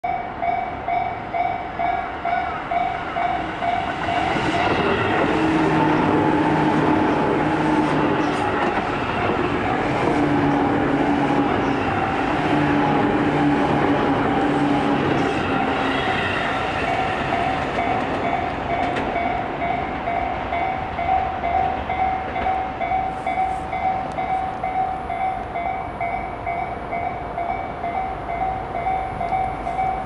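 Level crossing warning bell dinging rapidly, about two to three strikes a second, throughout. A Tobu 10000 series electric commuter train runs past over the crossing, loud from about four seconds in until about seventeen seconds, with its wheels clacking over the rail joints.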